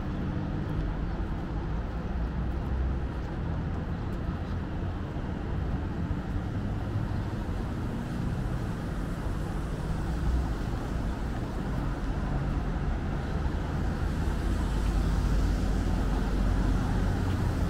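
Steady city traffic rumble from a road running alongside, a continuous low noise with no distinct events, growing a little louder near the end.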